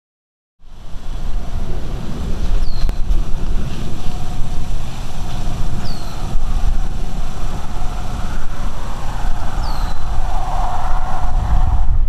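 Strong gusty wind buffeting the microphone with a continuous low rumble, cutting in abruptly about half a second in; a faint whistle strengthens near the end.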